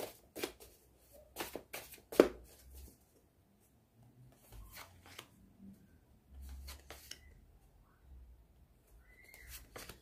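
A deck of oracle cards being shuffled by hand, with several sharp card snaps and flutters in the first few seconds, then softer rustling as cards are drawn and laid down on the cloth.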